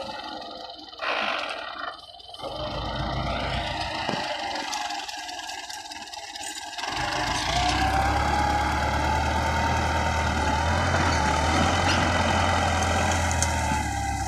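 Russian tractor's diesel engine running under load as the tractor pushes its blade through brush, getting louder about halfway through.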